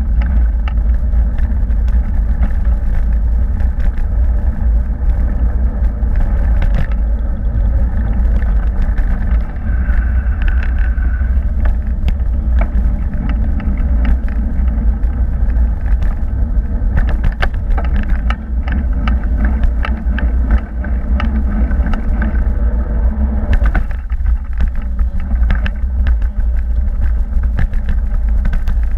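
Bicycle ride heard from a bike-mounted camera: a steady deep rumble of wind and road vibration on the microphone, with frequent small clicks and rattles as the bike rolls over tarmac and paving.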